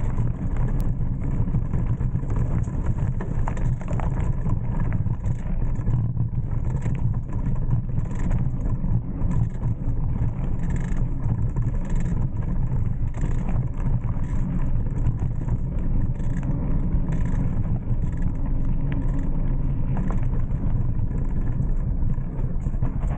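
Mountain bike rolling along a dirt singletrack trail: a steady low rumble of wind buffeting the bike-mounted camera's microphone, mixed with tyre noise on the dirt.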